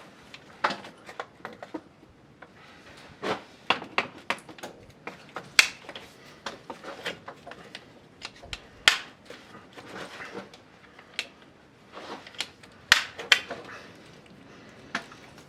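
Irregular clicks and light knocks of hydraulic hoses and their metal fittings being handled and arranged by hand at a tractor's hitch.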